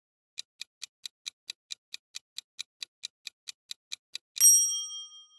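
Countdown-timer sound effect: quick, even clock-like ticking, about five ticks a second, then a single ringing ding near the end that marks time up.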